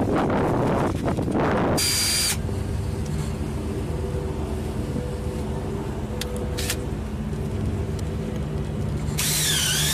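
A power drill runs briefly about two seconds in and again near the end, boring into the daymark sign; its high whine wavers up and down and then drops in steps as it winds down. Under it, a boat engine idles with a steady low hum, and the first two seconds hold rough rustling noise.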